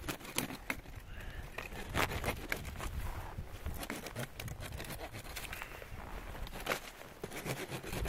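Irregular crunches, snaps and scrapes from someone working in snowy woods, with a low rumble of wind on the microphone.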